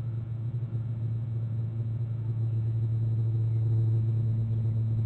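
A steady low hum with faint higher overtones, unchanging throughout.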